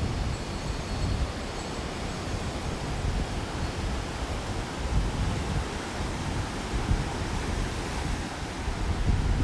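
Ocean surf washing with wind, the low rumble of wind gusts buffeting the microphone. A faint high chime tone dies away in the first few seconds.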